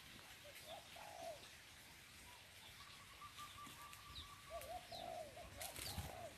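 Spotted doves cooing faintly: a short coo about a second in and a run of coos near the end, with a brief trill and a few small high chirps from other birds in between.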